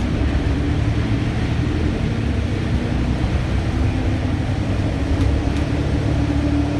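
Steady low rumble of a city bus's engine and running gear heard from inside the passenger cabin, with a faint steady hum over it.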